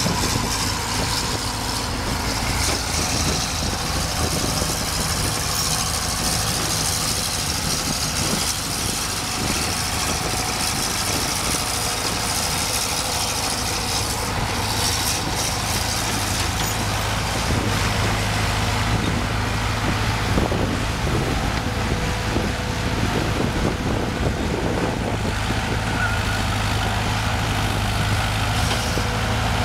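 Diesel engine of an older JCB tracked excavator running at a steady pitch while the machine digs and moves dirt.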